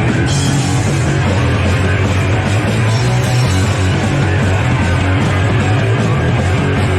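Punk rock band playing live and loud: electric guitar, bass and drums, with the full band kicking in just after the start.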